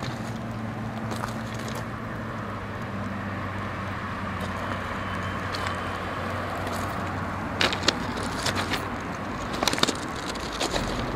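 Steady low motor hum with a few held low pitches. Short crunching footsteps on track ballast come about eight seconds in and again near ten seconds.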